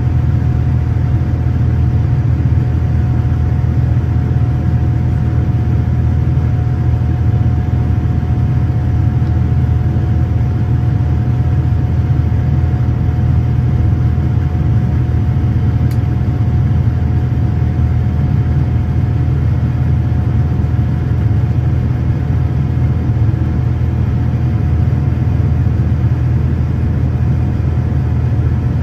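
Boeing 787-9's General Electric GEnx-1B turbofan engines during the climb, heard inside the cabin: a steady, loud low rumble with a steady mid-pitched tone above it.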